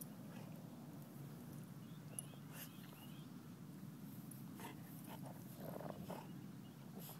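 Two dogs play-wrestling at close range, one pinned on its back and mouthing at the other: scattered short dog noises, with a louder cluster about six seconds in, over a faint steady low rumble.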